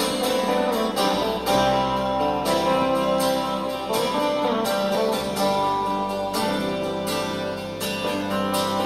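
Live instrumental intro of a ballad: acoustic guitar strummed in a steady rhythm with band backing, the bass notes changing every few seconds.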